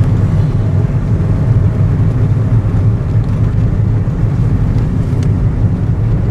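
Steady engine and tyre noise of a vehicle driving along a paved road, heard from inside the cabin as a constant low rumble.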